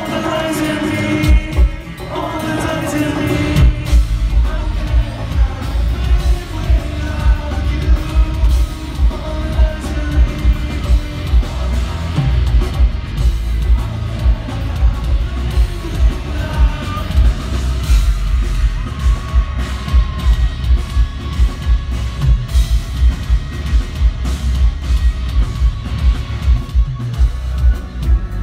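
Live metal band playing at full volume through a festival PA, heard from within the crowd: distorted electric guitars and a drum kit keeping a steady heavy beat, with sung lead vocals that are strongest in the first few seconds.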